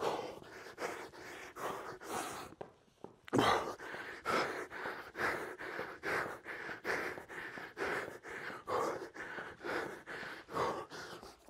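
A man panting hard from exertion while doing mountain climbers, in quick, rhythmic breaths about two a second, with a short break in the breathing a little under three seconds in.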